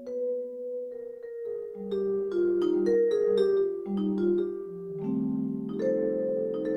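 Sampled Musser vibraphone with no vibrato, played from a malletKAT mallet controller through a gigKAT 2 sound module. A melody of struck, ringing notes, then a held chord of several notes about five seconds in.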